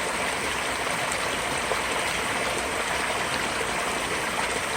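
Creek water rushing steadily over rocks at a waterfall trail, an even, continuous rush.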